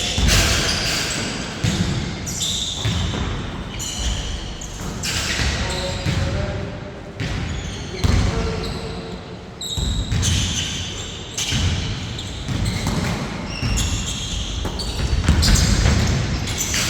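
Basketball bouncing on a hard court during play, with repeated thuds, short high squeaks and scattered players' voices.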